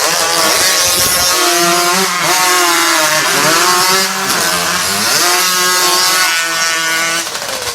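Two racing hot saws (chainsaws driven by big modified two-stroke engines) running flat out through logs, their engine pitch wavering up and down under load. Near the end the sound drops to a rapid, uneven rattle as the revs fall.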